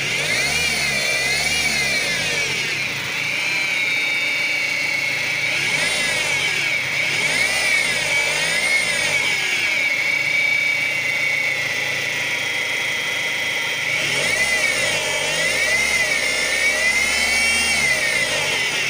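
Car power steering pump whining with the engine running. The high whine rises and falls in pitch again and again along with the engine note, a strange noise that the owner suspects comes from the pump.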